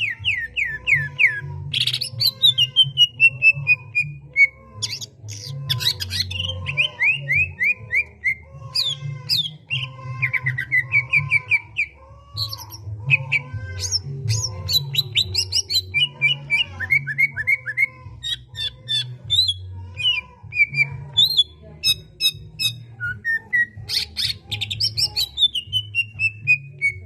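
Songbird singing continuously in varied phrases: fast trills, descending runs of whistled notes and sharp high calls, over a quieter repeating low backing sound.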